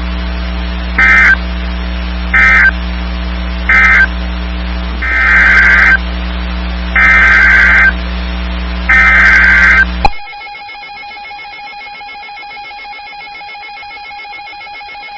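Emergency Alert System SAME data bursts on NOAA Weather Radio: three short, shrill digital bursts and then three longer ones, evenly spaced. Together they mark the end of one warning and the coded header of the next. About ten seconds in, the bursts give way to a steady, single-pitched alert tone.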